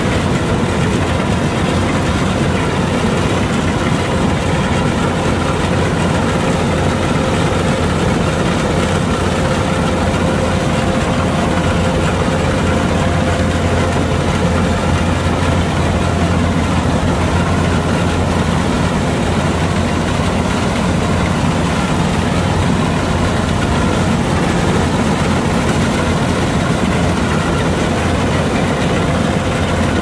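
Diesel engine of a Kubota DC-105X combine harvester running steadily at a constant speed, a loud, even drone with a deep hum.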